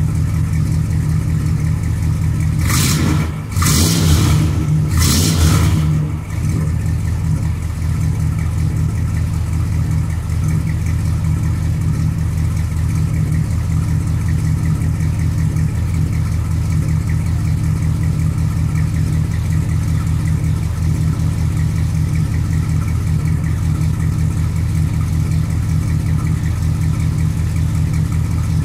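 1968 Dodge Coronet's 440 big-block V8 idling steadily through its exhaust, blipped briefly three times a few seconds in.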